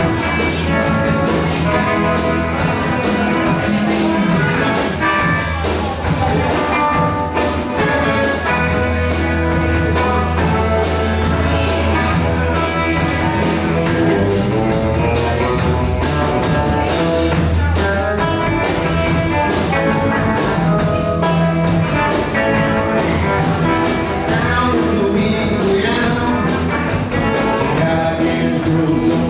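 Live electric blues band playing a 1950s-style blues number: two electric guitars, upright double bass and drum kit, with harmonica amplified through a microphone.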